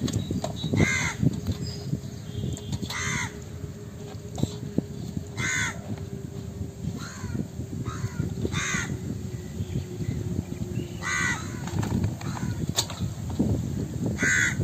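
Crows cawing repeatedly, single caws every two to three seconds with a couple of softer ones between. Under them, low rustling and knocking from hands turning a wet fish on a steel plate.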